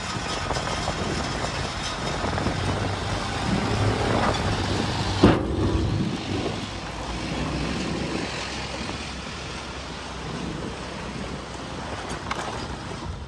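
Motorbike riding along a road: steady engine and road noise, with one short sharp knock about five seconds in.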